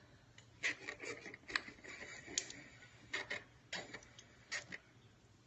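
Irregular light clicks and knocks, about a dozen over five seconds, of things being handled on a bathroom sink counter.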